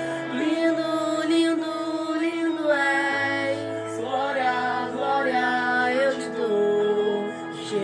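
Portuguese Christian worship song: a singer holds and bends long notes over sustained backing chords.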